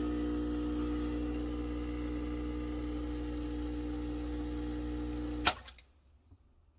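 Steady electric buzz of the Gaggia Classic Evo Pro espresso machine's vibratory pump running, cut off by a sharp click about five and a half seconds in as the brew switch is turned off.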